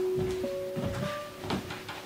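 Soft background score: a few held melody notes stepping upward in pitch.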